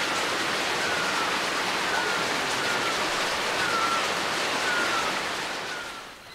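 Steady rushing of a mountain stream, fading out near the end, with a faint short falling whistle repeating about once a second.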